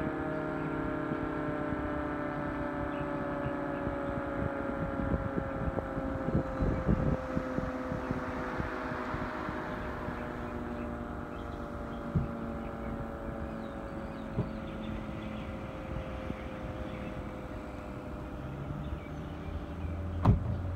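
Sentry 20V2T dual-tone electromechanical outdoor warning siren winding down at the end of a test, its two-note chord falling slowly and steadily in pitch. Wind rumbles on the microphone, and a few sharp knocks sound, the loudest near the end.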